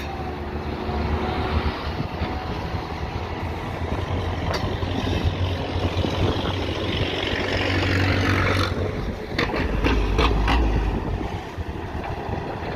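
Diesel engine of heavy construction machinery running steadily. A hiss builds up and cuts off suddenly a little past the middle, followed by a few sharp knocks.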